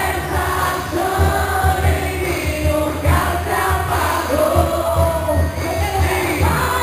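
Quadrilha junina music: voices singing together over a deep, steady beat about twice a second.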